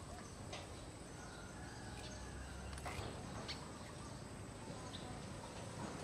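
House sparrows giving a few scattered short chirps over a steady low outdoor background rumble.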